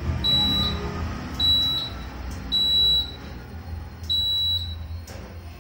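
Motorcycle turn-signal buzzer beeping four times in time with the indicator flashing. Each beep is short and high-pitched, and they come roughly a second apart.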